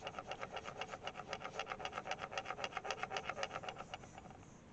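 Cotton bud (Q-tip) rubbed quickly back and forth over paper, blending coloured pencil, in a fast, even run of short rasping strokes that pauses near the end.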